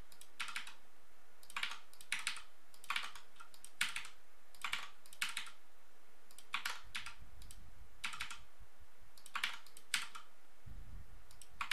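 Computer keyboard keystrokes and mouse clicks from Blender shortcuts, loop cut and vertex slide. Scattered single taps, some in quick pairs like a key double-tapped, with short pauses between.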